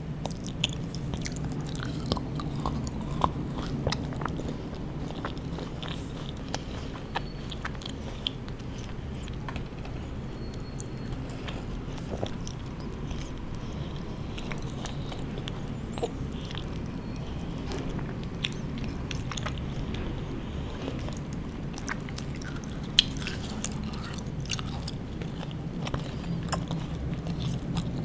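Close-miked mouth sounds of chewing soft, chewy candy such as sour candy belts, with many small wet clicks and smacks and one sharper smack near the end. A steady low hum runs underneath.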